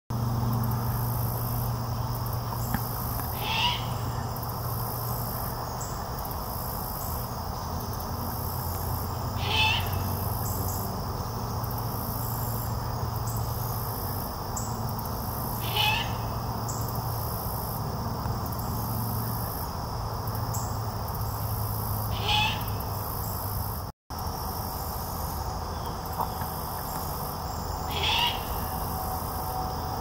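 Juvenile great horned owl giving its raspy begging screech five times, about every six seconds. This is a young bird calling for its parents to feed it.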